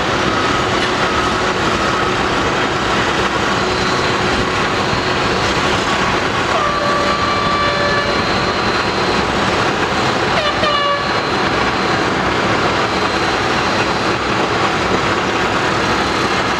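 Steady loud noise of heavy diesel machinery as a Cat 345CL excavator loads broken rock into a steel roll-off container. A backup alarm beeps for the first couple of seconds, and high squealing tones sound twice, around the middle.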